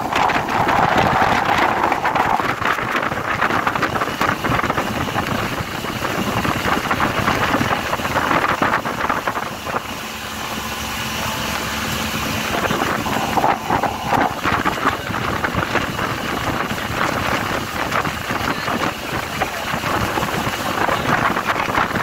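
A small boat's engine running steadily, with wind buffeting the microphone.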